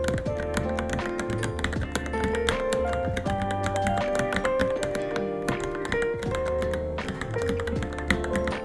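Continuous fast typing on a Varmilo Minilo mechanical keyboard, with irregular key clicks over background music that has a repeating bass line.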